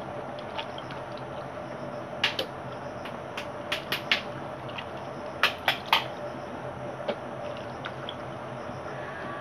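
Raw fish pieces being handled in a metal bowl: wet squishing with a scatter of sharp clicks and taps against the bowl, clustered from about two to six seconds in, the loudest three close together near the middle, over a steady background noise.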